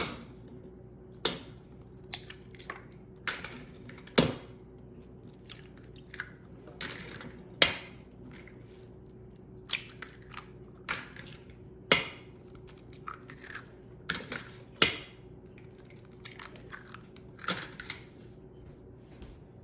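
Raw eggs being cracked open one after another: a series of sharp shell cracks and taps at irregular intervals, about fifteen in all, over a faint steady hum.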